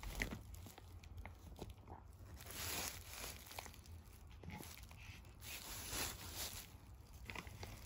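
Bubble wrap and plastic packaging crinkling and rustling quietly as a rubber engine mount is handled and turned over on it, with small clicks and two longer rustles, about three seconds in and about six seconds in.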